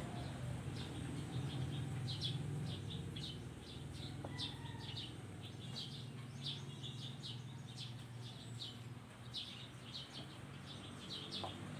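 Small birds chirping in the background: short high chirps repeating every second or so, over a low steady hum.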